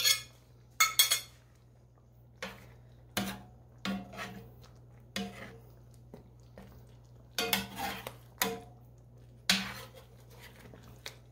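A utensil and a platter scraping and clinking against each other as meat juices are scraped off the platter into a skillet of gravy: about a dozen short, irregularly spaced scrapes and knocks.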